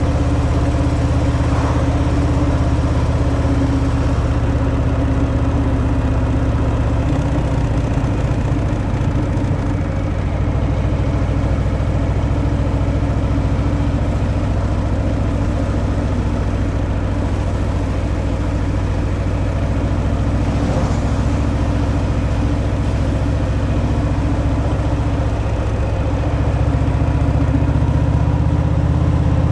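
Harley-Davidson Fat Boy's Milwaukee-Eight 114 V-twin running steadily through its stock exhaust, with small changes in engine speed about a quarter of the way in and again near the end.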